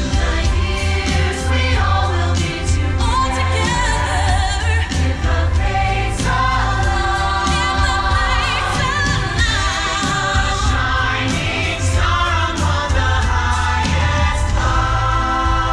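Holiday show music with a choir singing over a strong, steady bass line.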